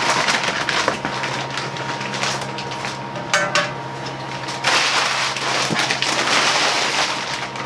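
Clear plastic wrapping crinkling and rustling as it is pulled off a steel truck bed-rack bar, louder in the last few seconds.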